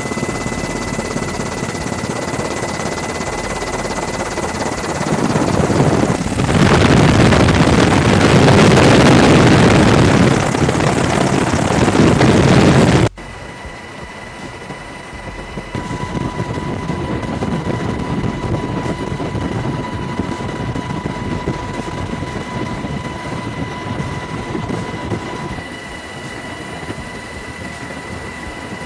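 Steady rushing noise of a helicopter's engine and rotor with wind, as heard from an aerial camera platform. It grows louder about five seconds in, then cuts off sharply at an edit about thirteen seconds in to a quieter version of the same noise.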